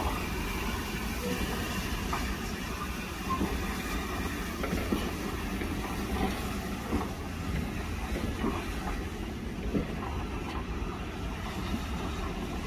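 Taff Vale Railway O2 class 0-6-2 tank engine slowly drawing a rake of coaches away, a steady rumble with scattered, irregular clicks of the wheels over the rail joints.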